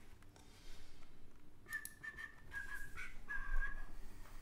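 Someone whistling a few short held notes at slightly different pitches, starting about two seconds in.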